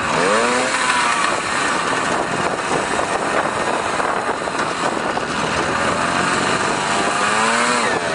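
Small trail motorcycle engine running, revved up and back down twice: briefly about half a second in, and more slowly near the end as the bike pulls away.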